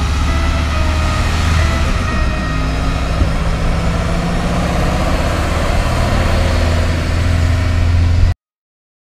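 Truck engine running steadily, a low drone, which cuts off suddenly about eight seconds in.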